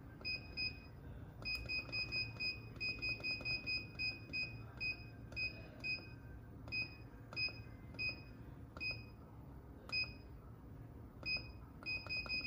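Key-press beeps from a Henny Penny electric pressure fryer's digital control panel: short, identical high beeps, one per button press. They come in a fast run of about a dozen early on, then single beeps every half second or so, then another quick run near the end, as the arrow keys scroll through letters while a program name is entered.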